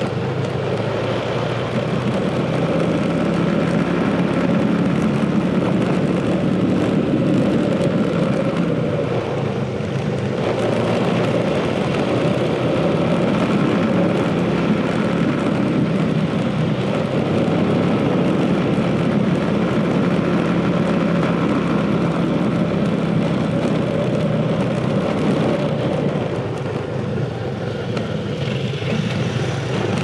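Motorcycle engine running steadily while riding along a road, with a rushing noise of travel. It eases off briefly a few seconds before the end.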